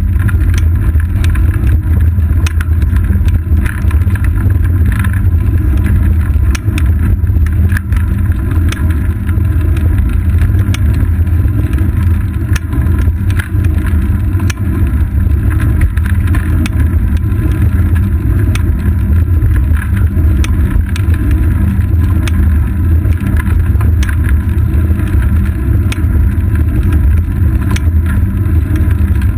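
Steady loud rumble of a road bike rolling on asphalt, picked up as road vibration and wind through a seat-post-mounted GoPro Hero 2, with frequent small clicks and rattles.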